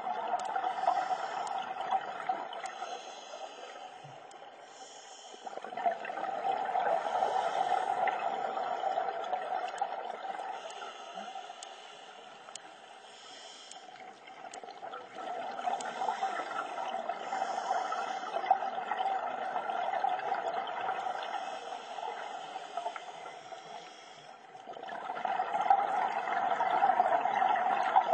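Scuba diver breathing through a regulator underwater: slow breaths, a quieter hiss alternating with a louder bubbling of exhaled air about every ten seconds.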